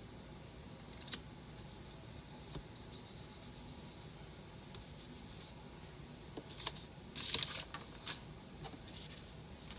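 Faint paper handling: fingers rubbing and pressing a sticker down onto a paper planner page, with a few light taps and rustles, clustered about seven to eight seconds in.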